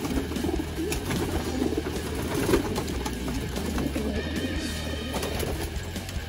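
A flock of domestic pigeons cooing continuously, a low warbling chorus of overlapping calls, with a few short sharp flutters or clicks.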